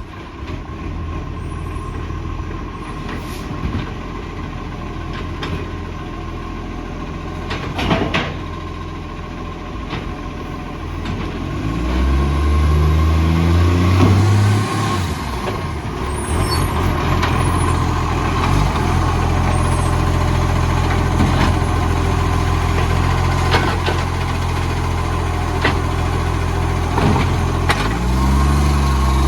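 Garbage truck's diesel engine running with an exhaust leak, first at a steady idle, then revving up about twelve seconds in and holding at higher revs, with another rise near the end. A few short sharp sounds stand out over the engine.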